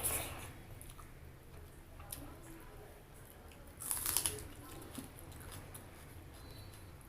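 Close-miked chewing and mouth sounds of eating, with small wet clicks and two louder crunchy bursts, one at the very start and one about four seconds in.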